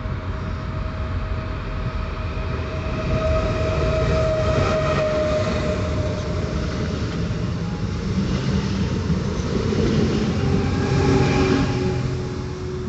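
A Koleje Mazowieckie Pesa Elf electric multiple unit passing close by: wheels rumbling on the rails under a steady multi-tone whine from its electric traction motors. The whine sags slightly in pitch as the train goes by, and a second, lower set of tones comes in near the end.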